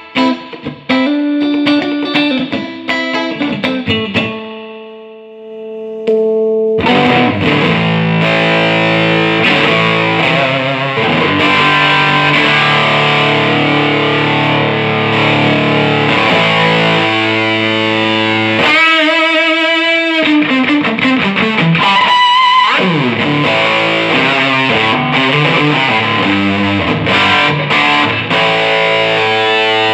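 Electric guitar played through a mid-90s Fender Hot Rod Deville 2x12 tube amp, freshly fitted with new filter caps, a matched pair of 6L6GC power tubes and new 12AX7 preamp tubes, in a sound test after repair. Single picked notes for the first few seconds, one left to ring out, then heavily overdriven playing from about seven seconds in, with bent and vibrato notes.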